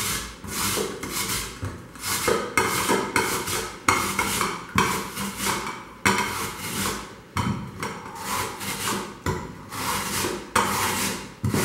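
Raw peeled potato rasped back and forth across a stainless-steel hand grater set in a bowl of water, in steady strokes about two a second.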